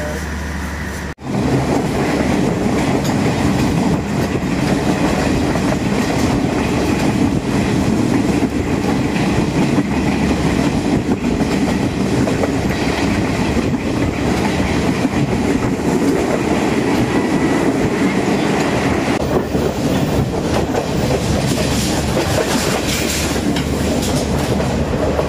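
Passenger train running along the line: steady, loud noise of the wheels on the rails and the moving carriage, heard from on board. It cuts in abruptly about a second in.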